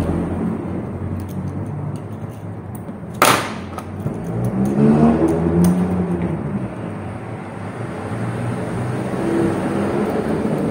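A single sharp bang about three seconds in, over a steady low rumble, with a pitched engine-like sound rising and falling a couple of seconds later.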